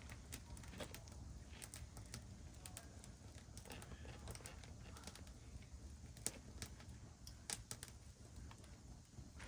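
Campfire crackling faintly: sparse, irregular sharp pops and clicks over a low steady rumble.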